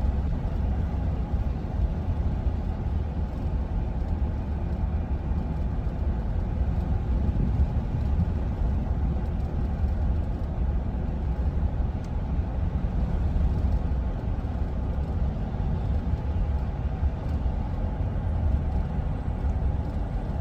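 Steady low road and engine rumble of a minivan driving along, heard from inside the cabin.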